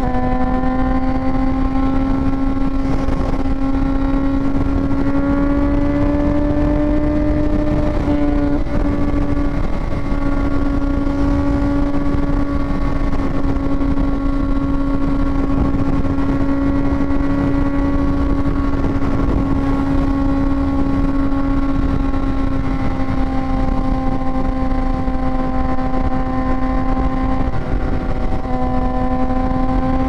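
Sportbike engine running at steady, fairly high revs while cruising, heard from the rider's helmet camera over wind rush. The engine note creeps up over the first several seconds, dips briefly, then holds almost level.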